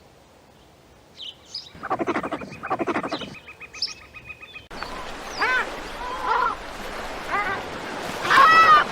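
Animal calls: two bursts of rapid pulsed croaks with a high steady trill behind them, then a run of short arching calls about once a second, loudest near the end.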